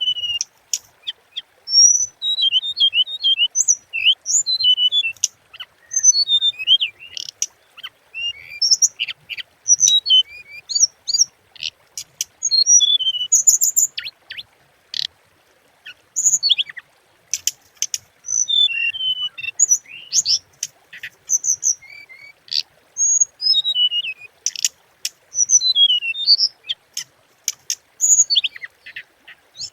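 A small songbird known in Vietnam as hồng hạnh giving a lure call: rapid, high-pitched chirps and twittering notes, many short sharp ticks among them, in bursts with brief gaps.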